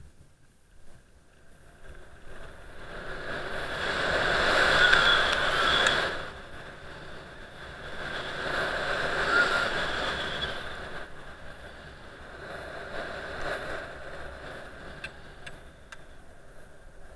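Skis scraping over groomed, packed snow on a downhill run, mixed with air rushing over the camera's microphone. The rushing, scraping noise swells and fades three times, loudest about five seconds in.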